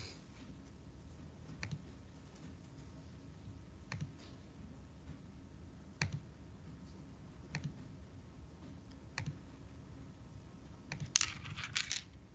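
Single computer mouse clicks every second or two, then a quick burst of typing on a computer keyboard near the end.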